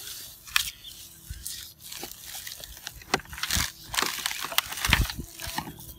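The old glued-on covering being torn and peeled off a speaker cabinet by hand: irregular ripping and scraping noises, with a dull knock about five seconds in.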